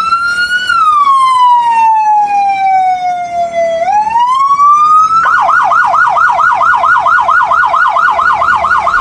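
Electronic police siren: a slow wail that falls and rises again, then switches about five seconds in to a fast yelp of about four to five sweeps a second.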